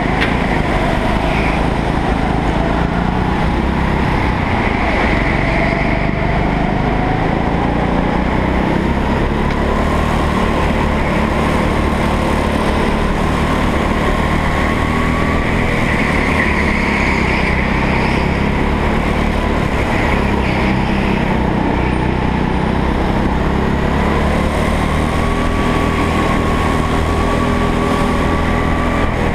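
Rental go-kart engine running at race pace, heard from on board, its pitch rising and falling slowly as the throttle is opened and eased through the laps.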